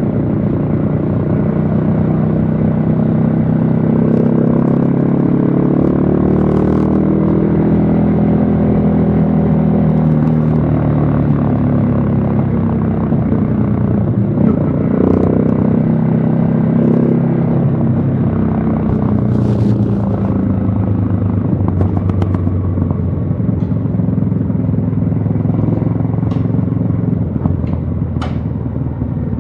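Yamaha XSR155's single-cylinder engine running under way, its pitch climbing and falling several times with throttle and gear changes, easing off near the end.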